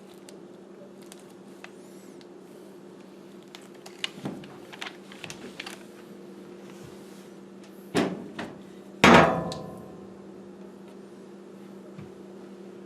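A hard metal tool handled and set down: a few light clicks, then two knocks about a second apart, the second the loudest with a short metallic ring.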